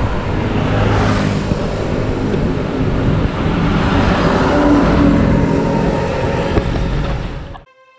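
Heavy diesel truck engine running steadily close by, mixed with road traffic noise; the sound cuts off suddenly near the end.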